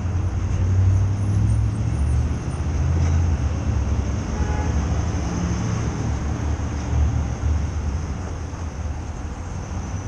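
Low, steady engine rumble mixed with city street traffic.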